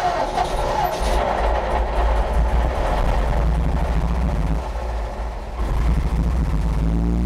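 Old car or truck engine being started: the starter whine gives way about a second in as the engine catches, and it runs rough and uneven, sagging near five seconds, before settling into a steady idle near the end.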